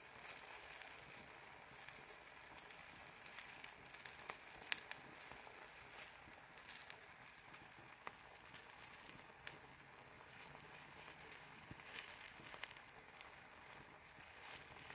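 Beef steak pieces cooking in their own juice in a molcajete over a wood fire, heard as a faint sizzle with scattered small pops and crackles.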